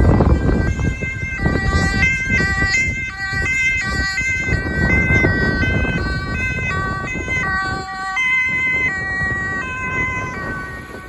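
Two-tone siren of a DAF fire-brigade water tanker as it drives past, its pitch stepping back and forth, with engine and road rumble underneath. It fades near the end.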